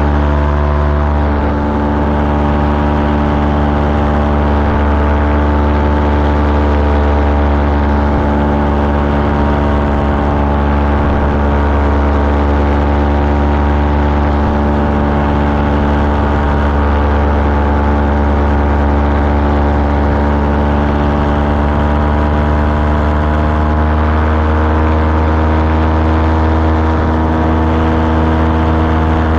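Small aircraft engine and propeller running steadily in flight, the engine speed creeping up slightly about 24 seconds in.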